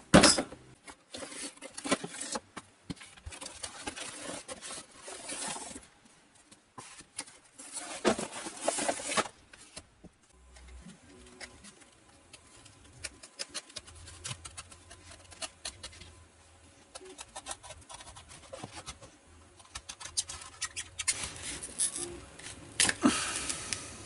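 Hands working a foam toy plane with a craft knife: irregular cutting, scraping and crackling of the foam, with handling knocks. A louder run of crackling comes near the end as the foam nose piece is pried off.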